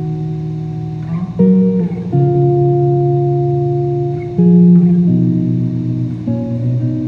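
Instrumental music: a guitar playing held chords that change every second or two, with no singing.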